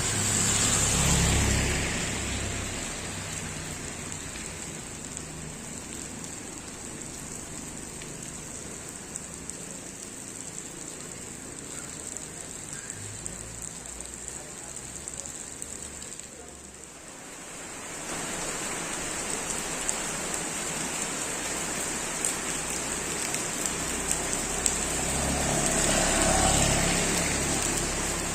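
Heavy rain falling steadily, a constant hiss with scattered drop ticks. It swells louder near the start and again near the end, with a low rumble under each swell.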